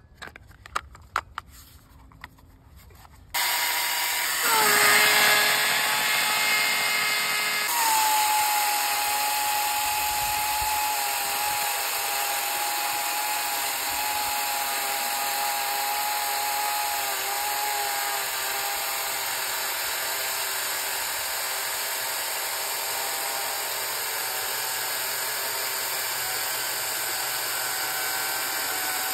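A few small plastic clicks as the Oregon PowerSharp sharpener is fitted onto the bar. Then the EGO 56V battery chainsaw's electric motor spins up, running loudly for a few seconds with its chain against the sharpening stone. After an abrupt change it cuts steadily through a log, with an even motor whine and the chain tearing through wood.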